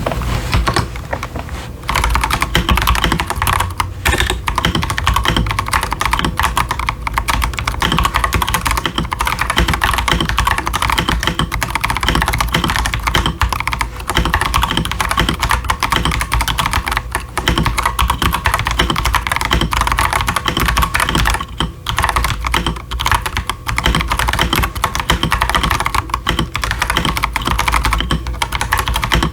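Fast, continuous typing on an unmodded Akko 5075s mechanical keyboard with stock Akko Jelly Purple tactile switches and ASA-profile doubleshot PBT keycaps: a dense run of keystroke clacks, with a brief pause a little past two-thirds of the way through.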